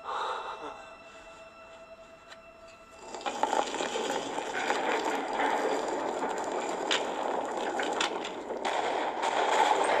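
Film sound effects of a stone temple collapsing. It is fairly quiet at first, then about three seconds in a continuous rushing, grinding noise of falling rock and debris sets in, with scattered cracks.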